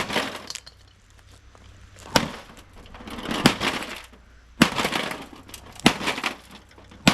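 About five heavy blows smashing electronics, each a sharp crack followed by glass and debris crackling and tinkling.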